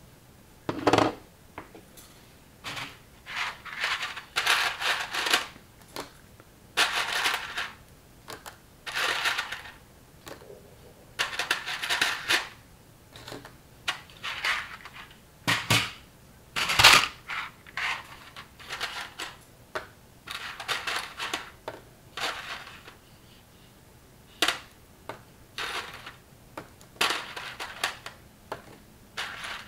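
Knockoff LEGO-style plastic building bricks being handled and pressed together: irregular clicks and clatter in short bursts, with pauses between them and one sharp snap about halfway through.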